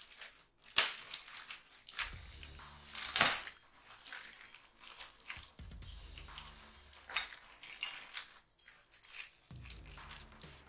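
Packing material being crinkled, crunched and pulled off exhaust parts by hand, with a few sharp clicks as the parts are handled.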